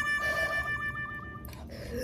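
A high, held harmonica-like note in background music, with a slight wavering, breaking off about one and a half seconds in.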